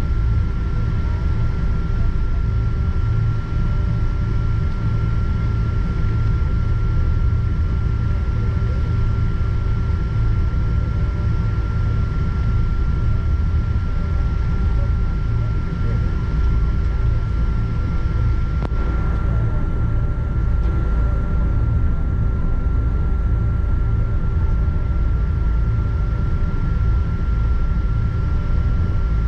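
Cabin noise of a Boeing 777-200ER taxiing: a steady low rumble from its Rolls-Royce Trent engines at idle and the airframe rolling, with a steady whine running through it.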